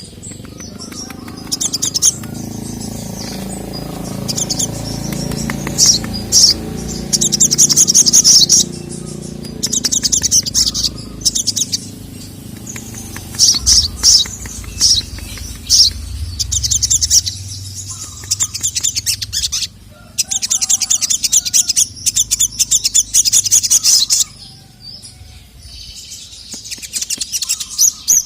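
Sogon (sogok ontong), a nectar-feeding songbird, singing in rapid high-pitched trilling phrases, some short and some held for a few seconds, the full 'gacor' song of an excited bird answering a male's call. A low rumble runs underneath through the first half.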